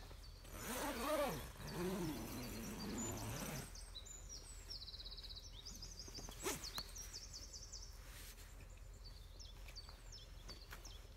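A brief wordless sound from a person's voice in the first few seconds, then small birds singing: a short rapid trill and repeated high chirps, with a single sharp click about six and a half seconds in.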